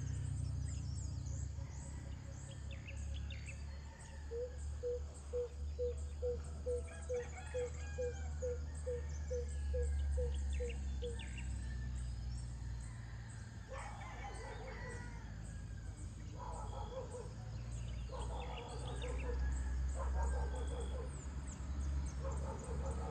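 Birds chirping at dawn. A bird gives a long series of low hooting notes, about two a second, and in the second half roosters crow several times, over a steady low rumble.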